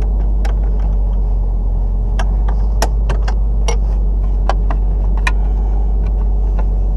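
Irregular metallic clicks and clinks of a hand wrench working the mounting bolts of a car seat's weight sensor, over a steady low hum.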